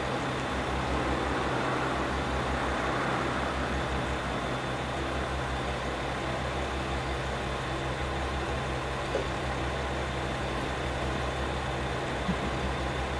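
Steady low idling hum of machinery, with a few faint clicks late on.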